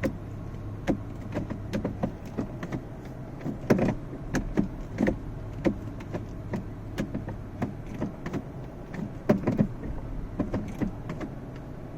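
Automatic gear shifter and shift-cable linkage of a 2006 Toyota Prado 120 being worked through its positions. It gives irregular clicks and knocks, over a steady low hum. The clicking comes from the makeshift bushing fitted as a temporary fix for a loose shift cable.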